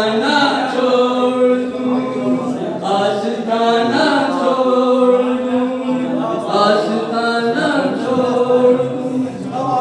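A man's voice chanting Urdu devotional verse in a melodic, unaccompanied style, holding long steady notes with gliding ornaments between phrases.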